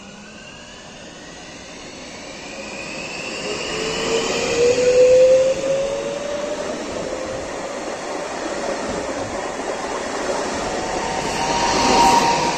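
HŽ series 6112 electric multiple unit running past along the platform, its electric traction whine rising in pitch and loudest about five seconds in. Near the end the sound swells again with a steady high tone over the rolling noise.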